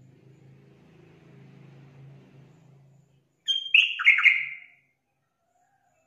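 Yellow-vented bulbul (trucukan) giving one short, loud burst of chattering calls about three and a half seconds in, lasting about a second. Before it, a faint low hum.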